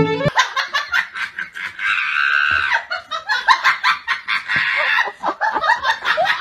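People laughing hard in rapid bursts off camera, with a higher, squealing stretch about two seconds in. Violin music cuts off just after the start.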